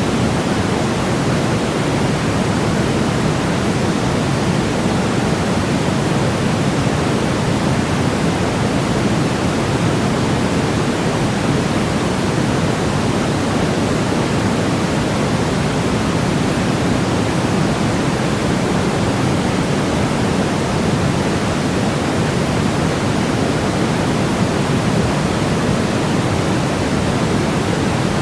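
Steady electronic sleep noise: an unbroken, even hiss that never changes, weighted toward the low end, so it sounds deeper than pure white noise, closer to pink noise.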